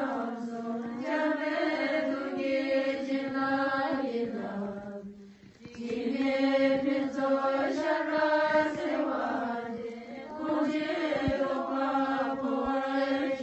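Voices chanting a slow Buddhist mantra on long held, droning notes, pausing for breath about five seconds in and briefly again near ten seconds.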